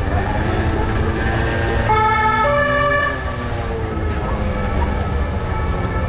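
Two-tone emergency-vehicle siren: a high note, then a lower one, loudest about two seconds in, with fainter sliding tones before and after. Under it runs a steady low rumble of street traffic and wind.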